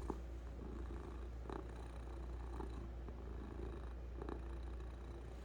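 Domestic cat purring steadily, with a few faint brief noises along the way.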